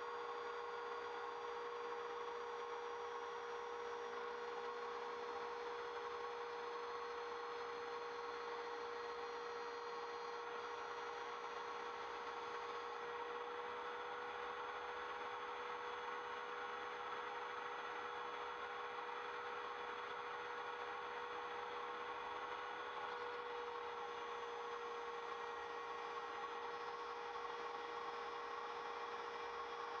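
Compact router on an MPCNC Primo CNC machine running steadily with a 1/8-inch single-flute end mill cutting slowly through plywood: a steady, even whine.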